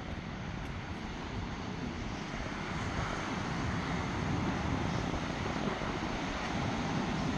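Ocean surf breaking on a beach, a steady wash of noise, with wind buffeting the microphone as a low rumble; it grows a little louder about three seconds in.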